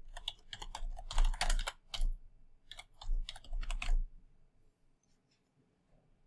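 Typing on a computer keyboard: a quick run of keystrokes for about four seconds, then it stops, leaving only a few faint clicks near the end.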